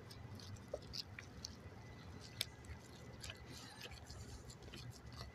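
Faint soft squishing with scattered small ticks: disposable-gloved hands packing and shaping a ball of ground beef mixture.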